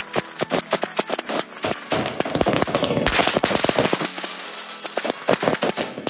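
A long string of firecrackers going off, a rapid, dense crackle of sharp bangs many times a second.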